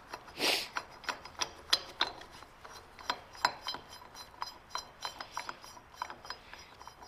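Steel parts of a metal shaper's tool head clicking and clinking as the tool lantern and its screw are handled and fitted. A short scrape comes about half a second in, followed by a run of irregular light metallic clicks.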